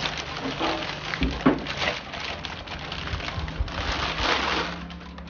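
Packaging rustling and crinkling in irregular handling noises as the RC dump truck is lifted out of its box.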